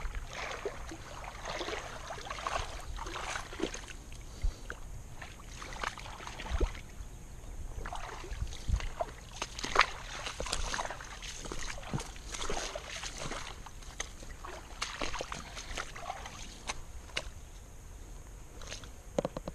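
Handling and footstep noise: scattered rustles, clicks and knocks as a landed bass is carried on the line up a grassy, dirt pond bank and taken in hand, over a steady low rumble.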